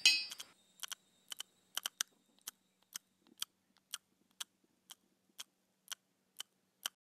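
A ringing, glassy chime fades out in the first half second, then a ticking clock gives sharp, evenly spaced ticks about twice a second.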